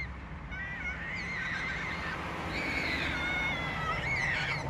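Australian magpie warbling: high, wavering notes that glide up and down, several at once, over a low steady rumble.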